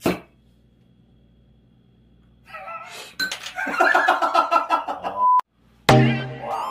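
A sharp pop as a glass beer bottle's crown cap is levered off with a chopstick. A few seconds later comes a busy run of pitched sounds ending in a short beep, then a loud pitched sound near the end.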